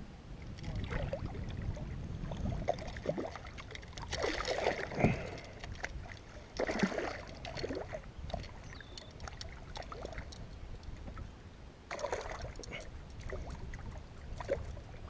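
Light water splashes from a hooked bass thrashing at the surface beside a kayak, with scattered small knocks and rustles of handling, over a low wind rumble on the microphone.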